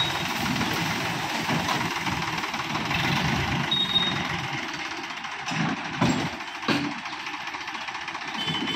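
Sonalika DI 750 tractor's diesel engine running at low speed while the tractor edges forward with its trailer bed tipped up. A few sharp knocks come about five and a half to seven seconds in.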